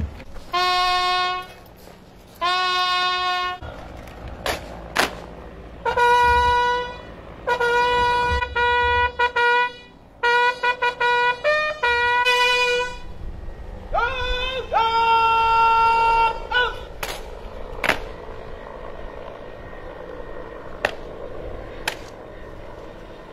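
Military bugle call played as a solo horn. It opens with two long notes on the same pitch, moves into runs of shorter notes, and ends on one long held note. A few sharp knocks follow near the end.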